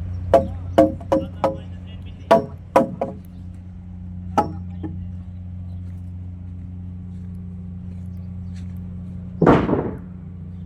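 Steady low electric hum from running machinery, with about nine sharp, ringing metal clangs over the first five seconds, irregularly spaced, and a short, louder rushing burst near the end.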